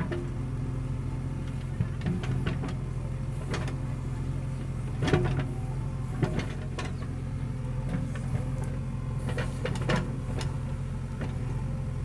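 JCB backhoe loader's diesel engine running steadily under load as the backhoe digs a trench, with scattered short knocks and clatters of the bucket working in the soil.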